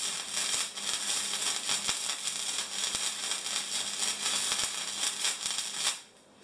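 Arc of a Suzukid Arcty 160 wire-feed welder crackling and sizzling steadily as a weld bead is laid on steel tube, stopping abruptly about six seconds in when the arc is broken.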